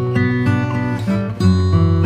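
Instrumental background music, its chords changing every half second or so.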